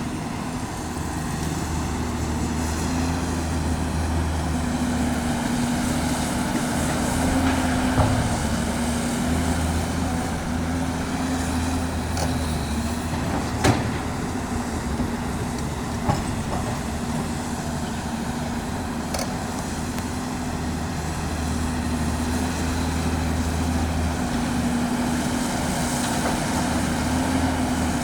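Caterpillar 329D L hydraulic excavator's diesel engine running under working load, its pitch rising and falling as it digs and loads, with a few sharp knocks of bucket, rock or earth.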